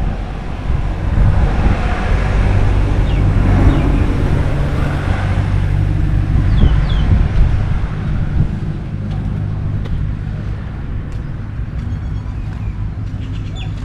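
Engine of a passing road vehicle: a heavy low hum that swells, is loudest in the middle, and fades away after about eight seconds. A few short bird chirps sound over it.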